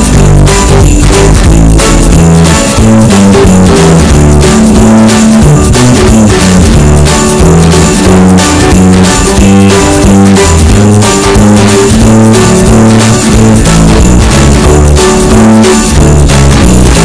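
Background music with a steady beat, loud and continuous.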